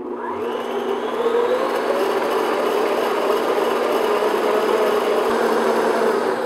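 Electric stand mixer with a paddle attachment, switched on and winding up to medium-high speed over about the first second, then running steadily as it beats butter, cream cheese and sugar to get air into the batter.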